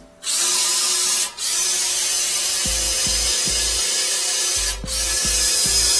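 Drill-driven flex-shaft drain cleaner running, its cable spinning in the toilet's trap to break up a blockage. It starts about a quarter second in and cuts out briefly twice, about a second in and near five seconds.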